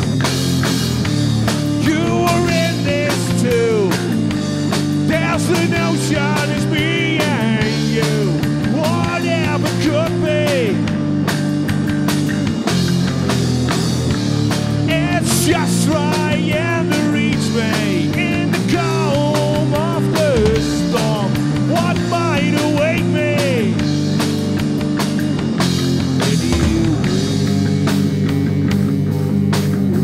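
Rock band playing live: electric guitar, bass guitar and drum kit, with a male singer. The singing comes in two stretches, about two seconds in and again past the middle, with the band playing steadily between.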